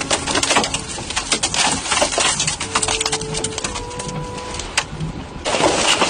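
Hurricane wind and rain battering, with many irregular sharp cracks and knocks and a few short whistling tones. About five and a half seconds in it cuts abruptly to a dense, steady rushing noise.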